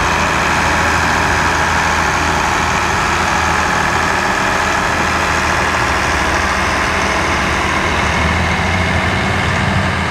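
International Harvester Turbo tractor's turbocharged diesel engine running steadily at low speed while towing a track-leveling drag, with no revving.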